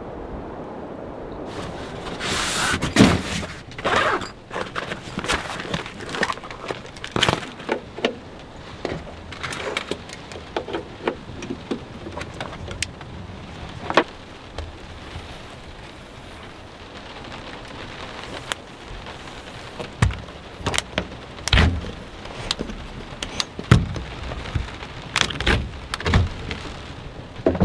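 Rain hissing steadily on the truck, heard from inside the covered truck bed, with frequent knocks, clicks and rattles of gear and a window being handled close by.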